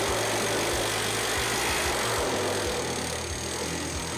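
Handheld pneumatic planishing hammer running steadily, its dies rapidly tapping a steel car hood panel to smooth it, worked at reduced air pressure with light pinch on the dies.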